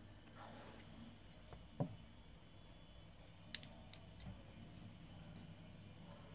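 Quiet handwork with a precision screwdriver driving tiny screws into a phone's metal mid-frame. There is a soft knock about two seconds in and a sharp small click about a second and a half later, over a faint steady low hum.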